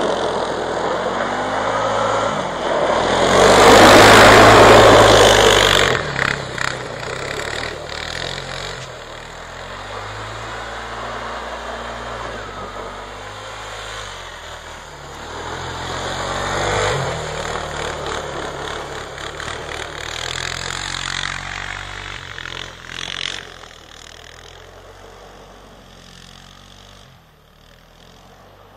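Suzuki Eiger 400 ATV's single-cylinder four-stroke engine revving up and down as the quad is ridden through snow. It is loudest about four seconds in, rises again twice later on, and fades away near the end.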